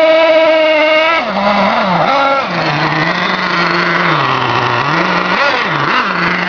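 Simson S50 moped's 50 cc two-stroke single-cylinder engine held at high revs, then dropping about a second in and rising and falling several times at lower revs.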